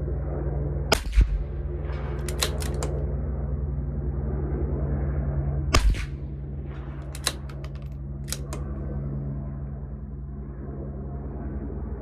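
Two shots from a CZ 457 LRP bolt-action .22 LR rifle firing Eley Tenex Pistol rounds, about five seconds apart, each followed by a run of clicks as the bolt is worked to chamber the next round. A steady low hum runs underneath.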